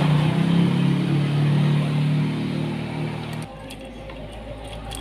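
A motor vehicle's engine running steadily, a low hum that cuts off suddenly about three and a half seconds in. A few light metallic clicks follow as the cam sprocket and timing chain are handled.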